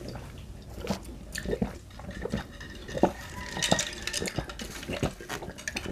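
Water being drunk from a glass in gulps: a steady run of swallows, a little more than one a second.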